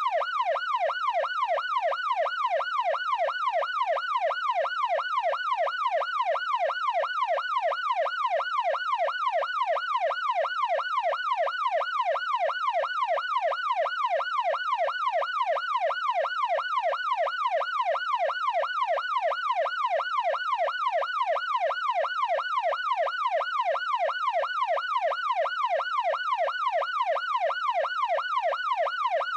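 Electronic police siren in a fast yelp, its pitch sweeping up and down about three times a second, steady and unchanging throughout.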